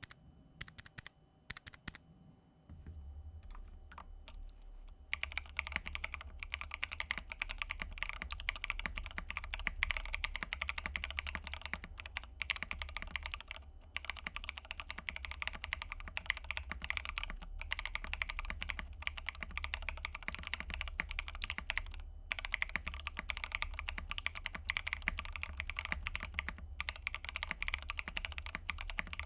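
Mechanical keyboard with JWK Epsilon switches, plate and case foam, Owlab stabilisers and XMI Cadet keycaps being typed on: a few scattered key presses at first, then continuous fast typing from about five seconds in, a dense run of key clacks with brief pauses.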